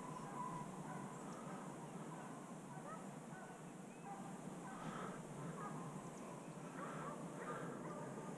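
Faint distant animal calls, a few short calls at a time, over a low steady outdoor background.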